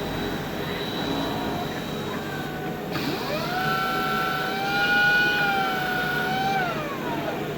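Orox automatic fabric cutting machine running with a steady mechanical noise. About three seconds in, a motor whine rises quickly, holds at a steady pitch for about three and a half seconds, then falls away near the end.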